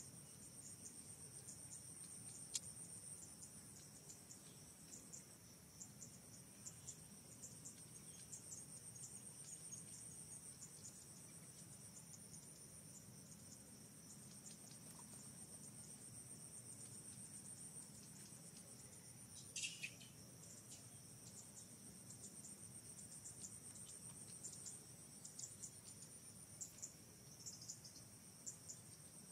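Faint, steady high-pitched insect chorus trilling without a break, with scattered short ticks and one brief sharp chirp about two-thirds of the way in.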